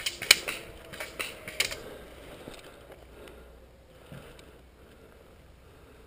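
A rifle-style sport gun firing a quick string of about six sharp shots within the first two seconds, the loudest near the start, followed by a single soft thump about four seconds in.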